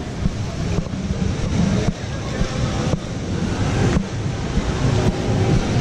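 Wind rumbling on a handheld camera's microphone during a walk outdoors, a steady low noise with brief dips about once a second.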